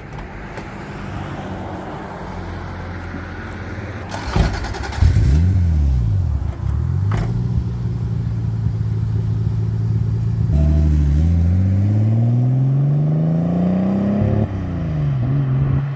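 Turbocharged car engine under hard acceleration. A short hiss comes a little after four seconds in, the revs swing up and down, then the pitch climbs steadily and drops sharply as it changes gear near the end.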